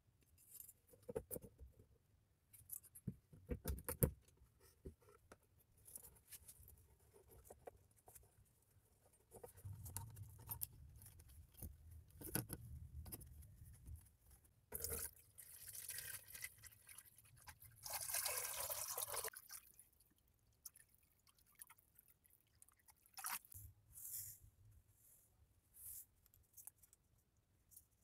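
Faint, scattered handling noises: small knocks and clicks of wire, a wooden stick and a plastic tub being handled while an electrolysis rust-removal bath is set up, with a brief rustling scrape about 18 seconds in.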